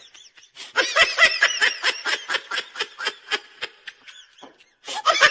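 A person laughing hard in rapid, high-pitched bursts, starting about a second in, dying away, then starting again near the end.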